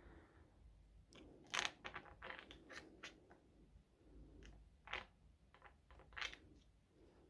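Faint paper handling as photo-book pages are turned: soft rustles and crackles, with three sharper page flicks.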